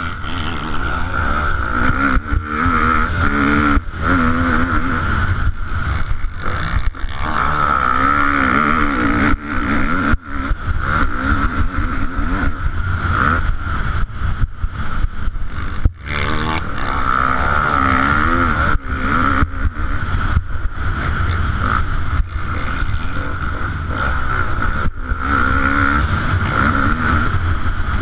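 Motocross bike engine revving hard, its pitch climbing and dropping again and again as the rider works the throttle and gears on a dirt track, with brief breaks every few seconds. Heavy wind rumble on the rider's camera microphone runs underneath.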